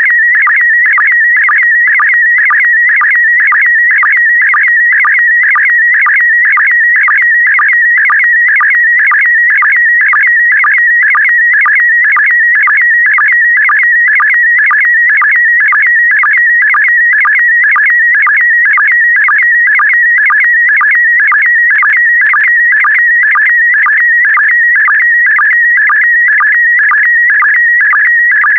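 Slow-scan TV image signal in PD120 mode: a loud, continuous warbling electronic tone carrying the picture line by line. It is broken by a short sync pulse about twice a second.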